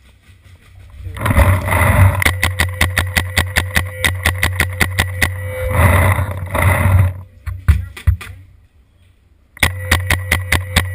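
Paintball marker firing a long string of rapid, evenly spaced shots. The fire stops about three quarters of the way through, then starts again near the end.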